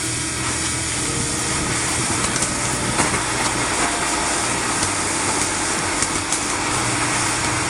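Ground fountain firework spraying sparks with a steady loud hiss and a few sharp crackles.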